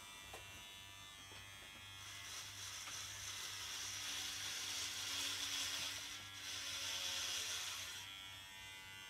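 Electric hair clippers running with a steady buzz. From about two seconds in the sound grows louder as the blades cut through long hair, then drops back near the end.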